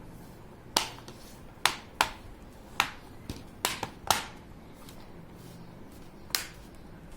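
Plastic snap-fit clips of a laptop's casing clicking into place as the case is pressed shut, the 'lock noise' of the parts locking together: about eight sharp clicks at irregular intervals over the first four seconds, and one more about six seconds in.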